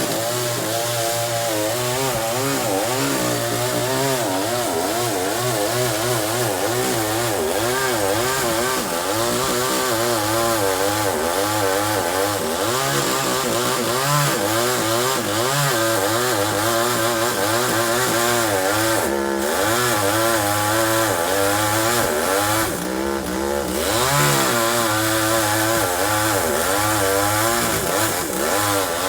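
Chainsaw running and cutting wood, its engine pitch rising and falling over and over as the load changes.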